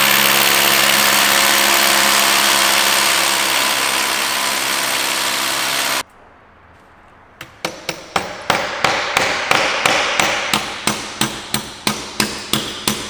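Cordless rotary hammer drilling into a concrete wall, running steadily for about six seconds and then stopping abruptly. After a short pause, a hammer drives a wedge anchor into the drilled hole with rapid, even strikes, about three a second.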